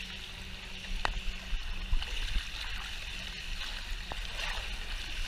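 Water rushing and gurgling down an enclosed water slide tube as a rider slides through it, with a steady low rumble and a few sharp knocks of the body against the slide wall.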